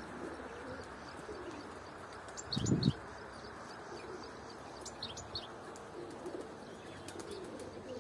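Outdoor bird sounds: pigeons cooing faintly and small birds giving short high chirps a few times, with a brief low fluttering burst about two and a half seconds in.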